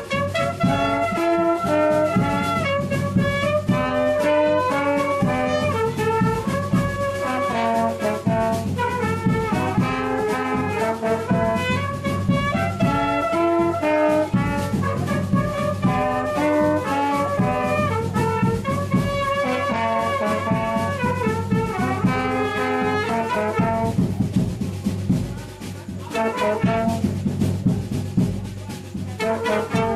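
Brass band playing a tune: horns in several parts over drums that include a bass drum. Twice near the end the horns drop out briefly while the drums keep going.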